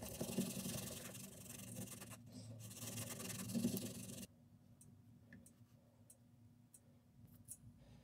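A wooden stirring stick mixing two-part epoxy on a strip of duct tape: a steady scraping rub, with a brief break about two seconds in, that stops abruptly a little past halfway. After it come only a few faint ticks.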